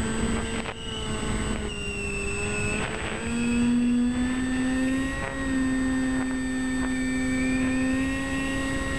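Electric motor and propeller of a Bixler foam RC plane droning steadily, heard from the plane's onboard camera, with wind rushing over the microphone. The pitch steps up a little after three seconds in as the motor speeds up, then holds.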